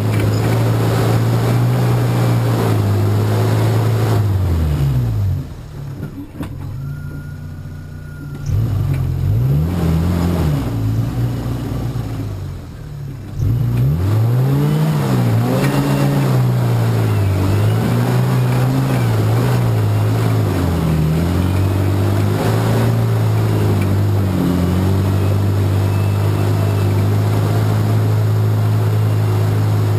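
Off-road 4x4 engine working up a steep rocky climb. It runs steadily, drops to low revs for a few seconds, then revs up and down again and again under load, and settles to a steady run near the end.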